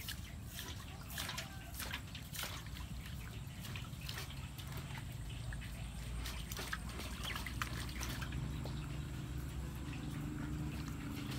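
Water sloshing and trickling in a metal basin as a water snake is washed by hand, with many small scattered splashes and clicks. A low steady hum comes in about eight seconds in.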